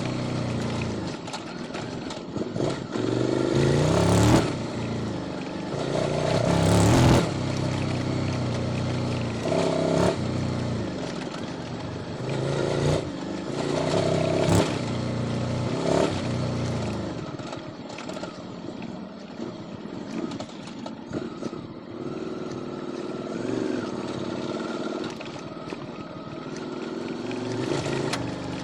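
QJ Motor SVT650X V-twin engine through an Arrow Racetech exhaust on custom headers, revving up and dropping back in several surges in the first half, then settling to a steadier, lower, quieter note.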